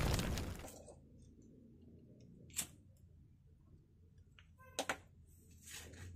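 Cut paper strips rustling loudly as they are gathered up, fading out within the first second. Then a quiet room with a few faint clicks and taps of the paper and a plastic lighter being handled and set down on the desk.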